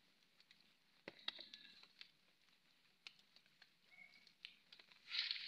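Faint crumbling and scraping of dry earth as bare hands break into a termite mound, with scattered small clicks of falling soil and a louder rustle near the end.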